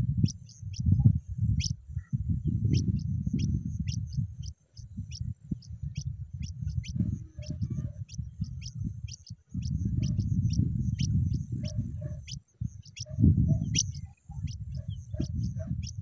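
Pipit nestlings giving thin, high begging chirps, several a second, each a quick downward slide. Under them a louder low rumble comes and goes in gusts.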